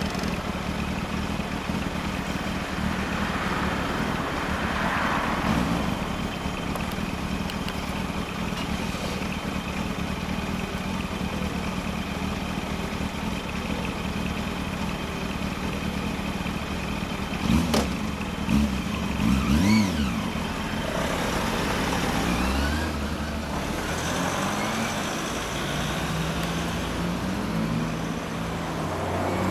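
Yamaha FZ400 four-cylinder engine with a Leo Vince L SBK aftermarket muffler idling steadily. Well past halfway it is revved in about four quick throttle blips, then it pulls away with the revs rising in steps near the end.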